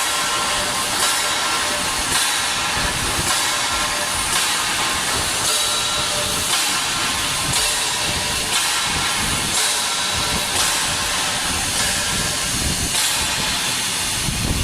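TIG welding arc hissing steadily, with a slight regular swell about once a second.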